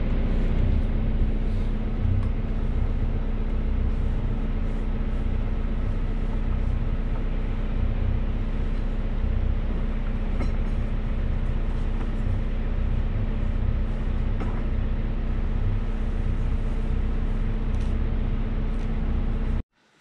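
Sailboat's inboard engine running steadily under way: a constant drone, with wind rumbling on the microphone. It cuts off abruptly near the end.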